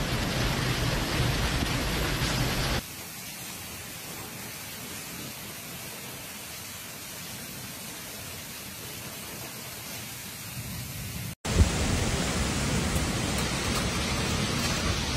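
Heavy rain and wind of a violent thunderstorm, a steady rushing noise. It drops quieter about three seconds in, then after a brief cut comes back louder with a sharp knock about eleven seconds in.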